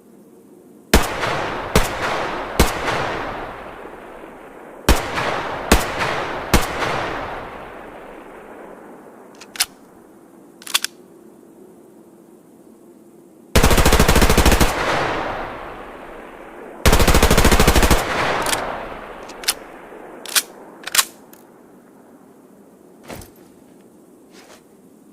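Heckler & Koch MP5 submachine gun firing: two groups of three single shots, then two full-auto bursts of about a second and a half each, then several more single shots. Each shot has a long echoing tail.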